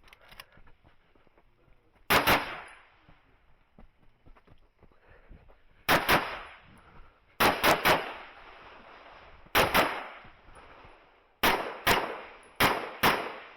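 Handgun shots fired in quick pairs, double taps, in several strings a couple of seconds apart as the shooter moves through an IPSC course of fire. Each shot ends in a short echoing decay.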